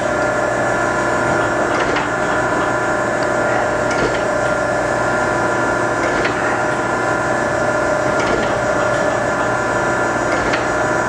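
Okamoto ACC-1224DX hydraulic surface grinder running an automatic surface-grinding cycle: a steady hum from the spindle and hydraulics over the hiss of the 12-inch wheel grinding the workpiece. A light click comes about every two seconds as the table reverses at each end of its stroke.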